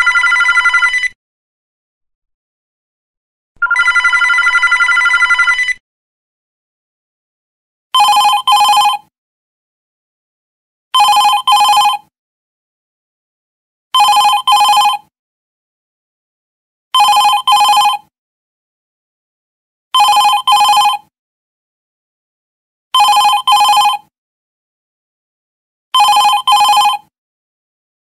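Telephone ringing sound effects. First come two long, higher-pitched rings of about two seconds each. Then, from about eight seconds in, a lower ring repeats as short double rings, one pair every three seconds.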